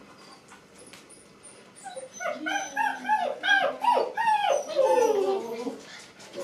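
Puppy whining and yelping: a quick run of about ten short high cries that rise and fall in pitch, starting about two seconds in and stopping shortly before the end.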